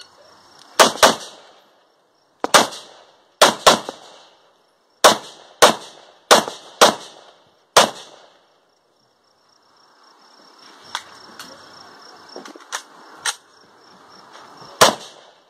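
IWI Tavor bullpup rifle firing a string of single shots: about eleven sharp cracks in the first eight seconds, some as quick pairs, each with a ringing tail. After a pause come a few fainter pops, then one more loud shot near the end.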